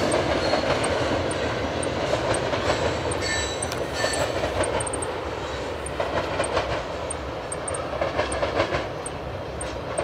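Freight train tank cars rolling along the rails, wheels clacking over the rail joints, with a brief high wheel squeal about three to four seconds in. The rumble slowly fades as the cars move away.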